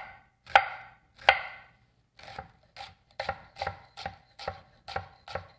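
Kitchen knife slicing a red onion on a wooden cutting board: two firm chops in the first second and a half, then a quicker run of lighter cuts, about three a second.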